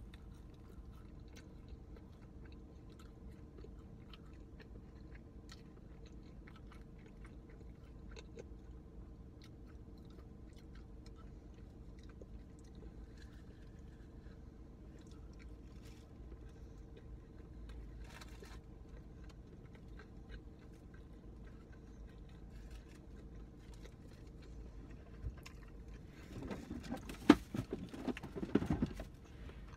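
Low steady hum inside a parked car with faint small clicks and rustles; about 26 seconds in, a few seconds of loud rustling, scraping and knocks as someone leans across the seats and handles things.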